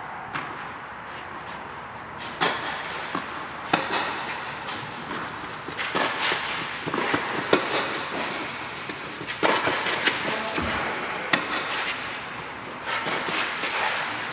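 Tennis balls struck by rackets and bouncing on a clay court, a string of sharp hits every second or two, echoing in a large air-dome hall.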